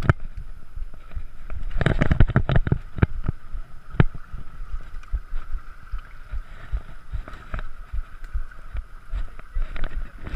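Mountain bike rolling over a rough trail: repeated knocks and rattling clatters from the bike, densest about two seconds in, with a sharp knock about four seconds in, over a low wind rumble on the microphone.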